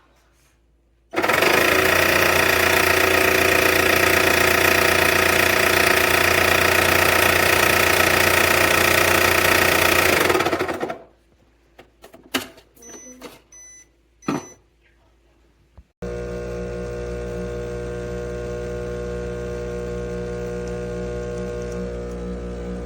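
Breville Barista Touch espresso machine running a motor loudly and steadily for about ten seconds, then stopping. A few clicks and three short high beeps follow, then a quieter steady hum begins abruptly.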